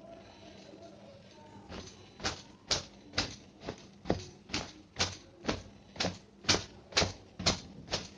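Towel striking long wet hair in a steady rhythm, about two sharp pats a second, starting about two seconds in after a soft rustle of cloth.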